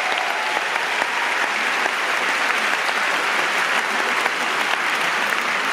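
A large theatre audience applauding steadily, a dense, even clapping.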